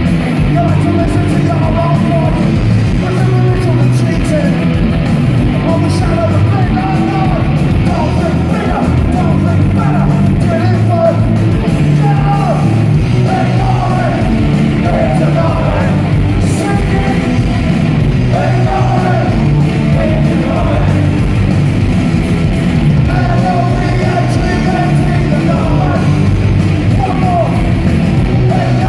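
Loud punk rock song with shouted vocals over a full band, continuous and steady in level.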